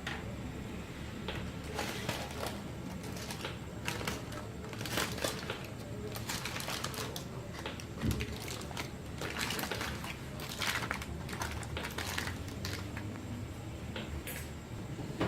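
Wrapping around a steamed chicken crinkling and rustling in irregular crackles as it is opened by hand, with a soft knock about eight seconds in.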